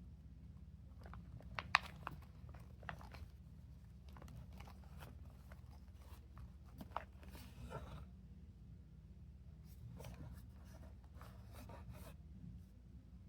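Fidget toys being handled and sorted: scattered light clicks, taps and rustling scrapes of small objects being picked up and set down, the sharpest click about two seconds in, over a faint steady low hum.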